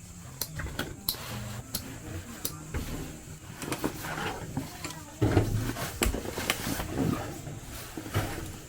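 A run of irregular clicks and knocks, as of objects being handled and set down, over a low steady hum, growing louder about five seconds in.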